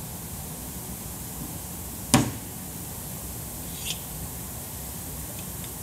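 One sharp click about two seconds in, then a few faint ticks, over a steady hiss. These are small parts of a stick computer being handled and fitted together.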